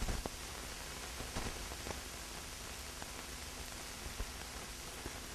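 Steady hiss and crackle of a worn 16mm film print's optical soundtrack, with scattered sharp pops about a second apart or less, several of them in the first half and one near the end; no music or voices.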